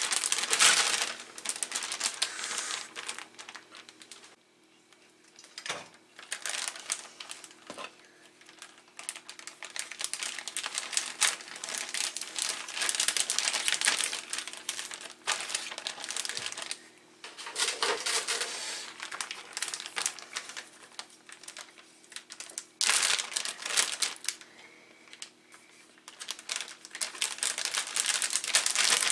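Thin plastic zipper storage bags crinkling and crackling in irregular bursts as they are opened, handled and the roe sacs slid inside, with a few short pauses.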